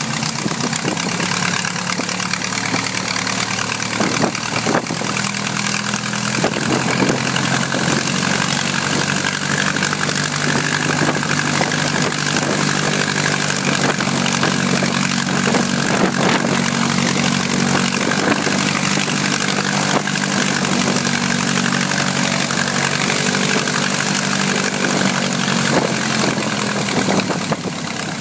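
The water-cooled Wolseley Viper V8 aero engine of an SE5a biplane idling steadily on the ground, its propeller turning.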